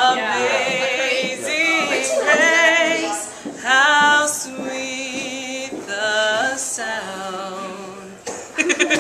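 A woman singing unaccompanied, holding long wavering notes, breaking into laughter near the end.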